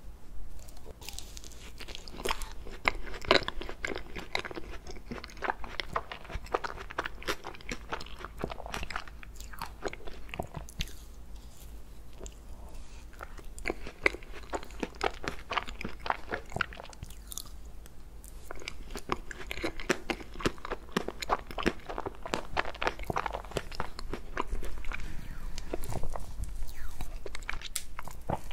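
Close-miked eating of a frozen ice cream cake: crunchy, crackling bites and chewing in several bouts of mouthfuls. Near the end a metal fork pushes into the cake.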